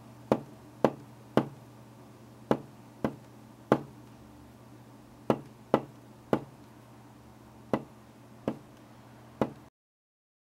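A fingertip tapping on a wooden floor: about a dozen single, sharp taps at an uneven pace over a faint low hum. The sound cuts off abruptly near the end.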